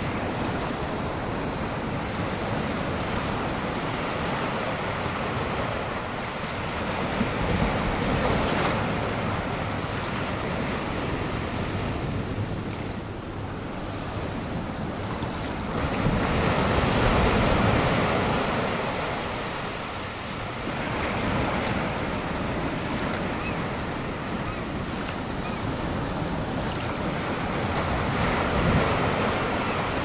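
Ocean surf: waves breaking and washing up a shore in a continuous rushing noise that swells and eases every few seconds, the biggest wave a little past halfway.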